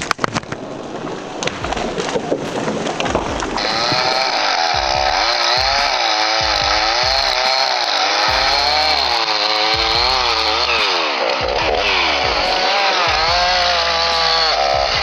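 A two-stroke chainsaw running and cutting, its pitch rising and falling as it bogs under load and revs back up. Before it starts, the first three seconds hold a string of sharp cracks and knocks.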